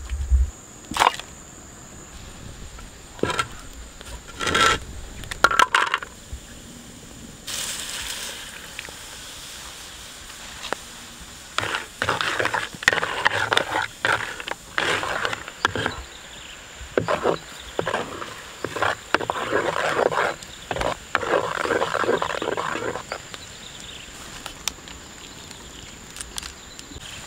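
Chunks of fat frying in hot oil in a wok, with a sizzle that starts suddenly a few seconds in. A wooden spatula then scrapes and stirs against the wok in many short strokes. A few sharp knocks come first.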